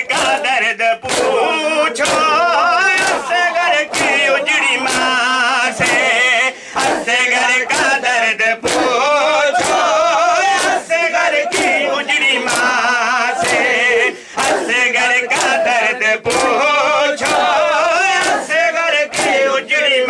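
Shia matam: a crowd of men beating their chests with open hands in unison, a sharp slap a little faster than once a second, under male voices singing a Muharram mourning chant.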